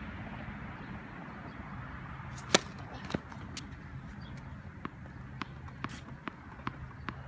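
A tennis ball bounced over and over on a hard court, sharp pops about every half second, with one louder crack about a third of the way in.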